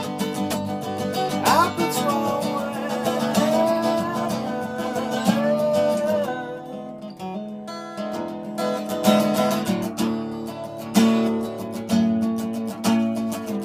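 Acoustic guitar strummed in steady chords, with a man singing a long held, sliding line over it for the first half; after about six seconds the guitar carries on alone.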